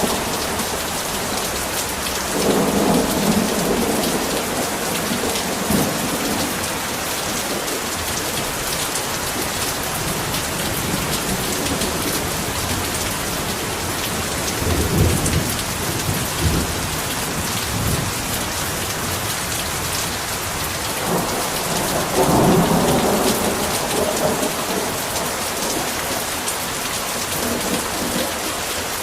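Heavy rain pouring steadily, with rolls of thunder rumbling up three times: about two seconds in, around the middle, and again about three-quarters of the way through.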